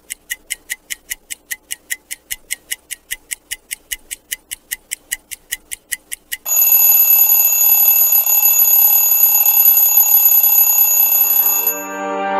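A clock ticking about four times a second, then an alarm clock ringing loudly for about five seconds and cutting off suddenly near the end.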